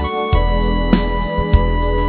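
Instrumental break of a song: sustained chords over a low bass, with a steady drum beat about every 0.6 seconds and no singing.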